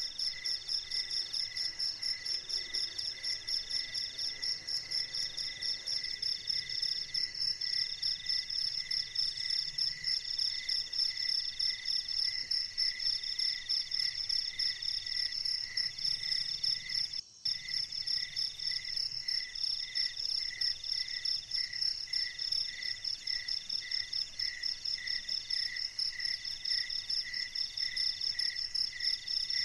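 Chorus of night insects trilling steadily at several high pitches, one part pulsing quickly and another in repeated phrases about a second long. The sound drops out briefly about 17 seconds in.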